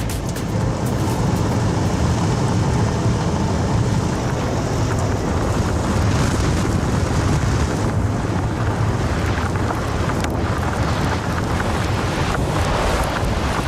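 Steady rumble and wind noise of a Ford F-150 Lightning electric pickup driving off-road, mostly tyre and road noise with occasional short knocks.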